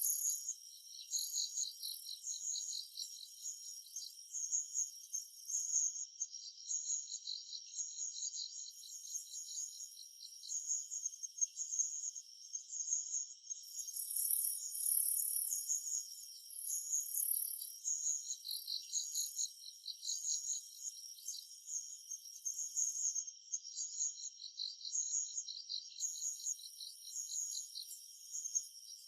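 Summer forest insect chorus: several insects calling at once, all high-pitched. One layer pulses in rapid trains, and a higher buzzing layer starts and stops every few seconds.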